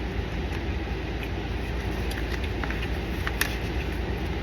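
Steady low vehicle rumble, with a few faint clicks, the sharpest about three and a half seconds in.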